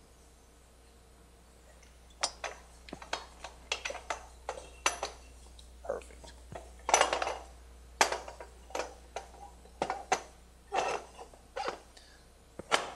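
Metal clanks and clinks as a pipe-fusion carriage's jaw is fitted onto its guide rods by hand. Irregular knocks come a few a second from about two seconds in, with one longer, ringing clank near the middle.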